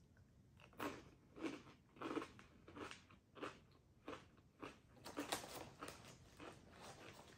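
Close-up chewing of caramel-coated corn puffs (Beaver Nuggets) with the mouth: a regular run of fairly faint crunches, about three every two seconds.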